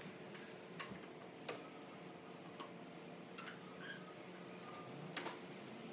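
Scattered light metallic clicks, about six in all, of a screwdriver working the two small screws out of a Scout II door's window channel, over a faint steady hum.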